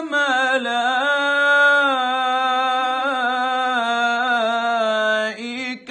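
A solo male Quran reciter's voice, unaccompanied, holds one long melodic note in tilawa style at a nearly steady pitch with small ornamental wavers. The note breaks off near the end.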